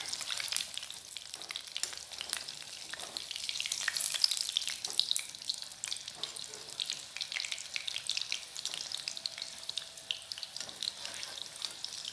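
Battered cauliflower pakoras deep-frying in hot oil in a kadhai: a continuous crackling sizzle with many quick pops, as a wire-mesh skimmer turns them in the oil.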